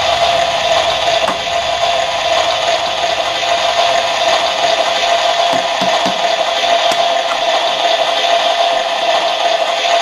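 Toy electric cooker's hob playing its steady cooking sound effect: a continuous hiss with a steady hum-like tone through it. A few faint knocks come about halfway through.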